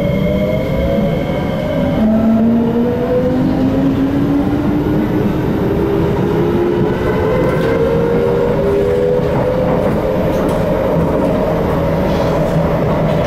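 Interior of a C751B metro train accelerating away from a station: the traction motors' whine climbs slowly in pitch in several tones, a new lower tone starting about two seconds in, over the steady rumble of the wheels on the track.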